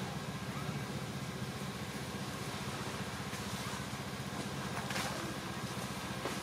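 An engine running steadily at idle, a low even hum with a few faint clicks over it.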